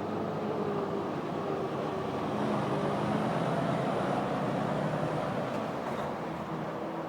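Steady vehicle noise: an engine running with a faint wavering hum under a constant rushing sound.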